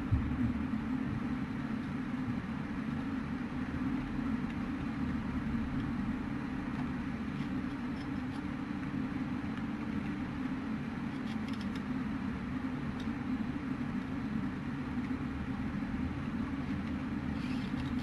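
Steady low droning hum with a faint hiss behind it, unchanging throughout; a few faint light ticks come through near the middle and again near the end.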